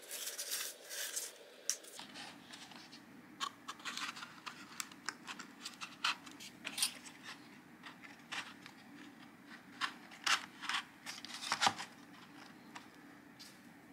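Paper parts of a handmade paper mechanism being handled and turned: irregular dry scratches, rustles and light clicks of card rubbing and tapping against card.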